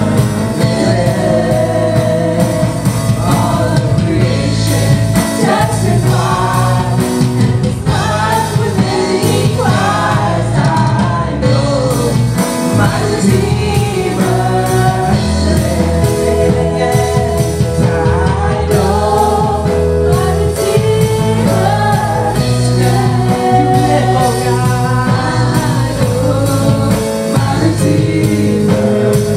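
Gospel worship song: voices singing over a full instrumental accompaniment with steady bass.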